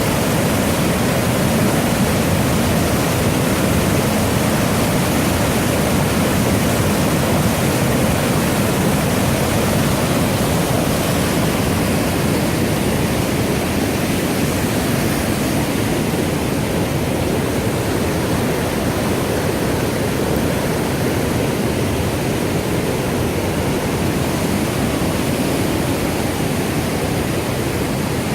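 Millstone River water rushing: a loud, steady, even noise of flowing and falling water.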